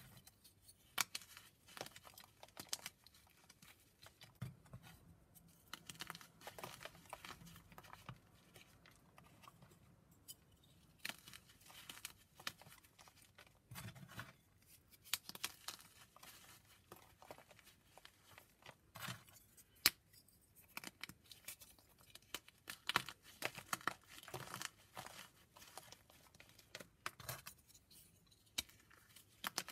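Blocks of gym chalk being crumbled and shaved close to the microphone: a dense, irregular run of crisp crackles and crunches, with a few louder snaps.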